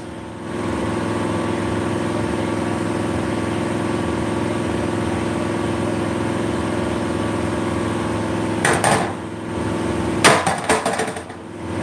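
Steady machine hum, broken near the end by two short bursts of knocking and clatter from hammers being handled.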